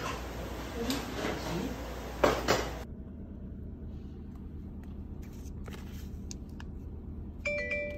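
Restaurant clatter of dishes and cutlery under a murmur of voices, cutting off after about three seconds to a low steady hum with a few faint clicks and rustles. A few musical notes begin near the end.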